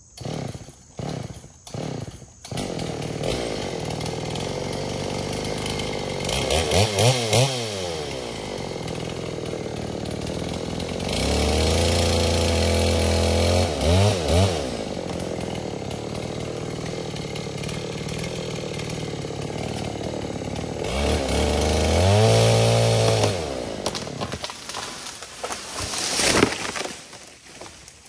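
Old Dolmar two-stroke chainsaw catching after a few short bursts, then running and revving as it saws through the back cut of a leaning elm in two passes about ten seconds apart. Near the end comes a single loud crash as the tree goes over, and the saw dies away.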